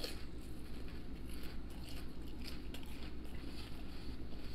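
A person chewing a mouthful of battered fried seafood with mouth closed, with faint scattered crunches.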